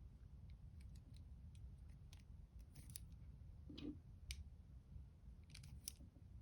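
Near silence broken by faint, scattered clicks of Lego Technic plastic parts being handled and fitted together, over a low hum.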